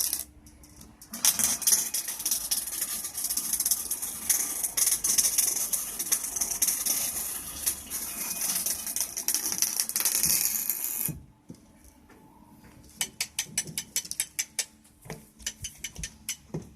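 Rapid mechanical clicking and rattling, dense and hissy, that stops abruptly about eleven seconds in, followed by scattered separate clicks.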